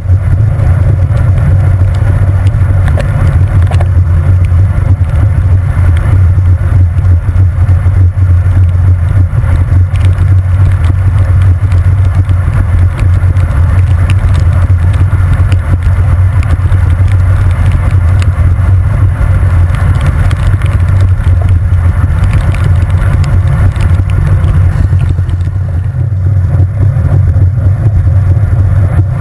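Loud, steady low rumble of wind and road vibration on a handlebar-mounted camera's microphone as a road bike is ridden on rain-soaked tarmac, with a fainter hiss of wet tyres and spray over it.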